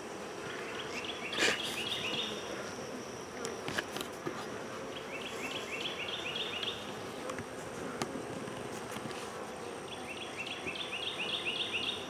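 Honey bees buzzing steadily around an open hive box. A single knock comes about a second and a half in, and a short run of high, quick chirps comes three times, about every four to five seconds.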